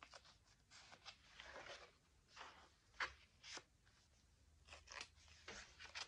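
Glossy magazine pages of a handmade junk journal being handled and turned: a run of soft paper rustles and crinkles, with a sharper crackle about three seconds in.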